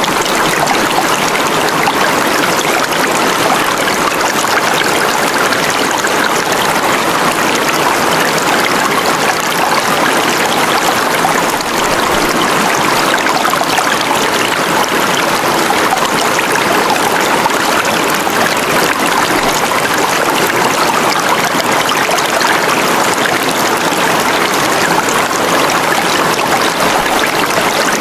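Steady rushing, trickling water like a flowing stream, even and unbroken.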